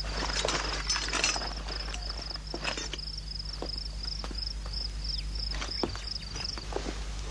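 Insect chirping in short, even trills about three times a second, stopping near the end, with scattered light knocks and steps.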